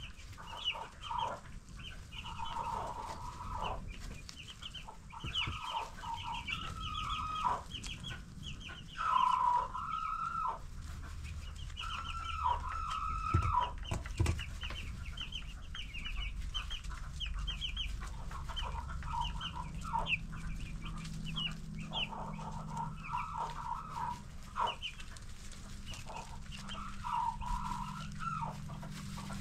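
A flock of ten-day-old broiler chicks peeping: many short, high chirps in quick runs, mixed with longer, lower calls that drop in pitch at their ends.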